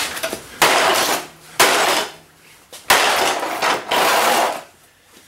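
Three heavy blows smashing into the housing of a Toro Power Curve 1800 electric snowblower, each a sudden crack followed by about a second of clattering rattle.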